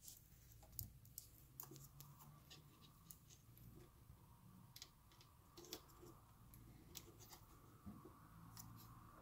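Near silence with faint, scattered clicks and scratches of fingers handling a thin flat cable and pressing it into its connector.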